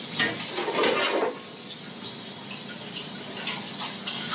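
Boiled noodles being tossed by hand in a stainless steel bowl to coat them with potato starch: a soft swishing and rustling, loudest in about the first second, over a steady background hiss.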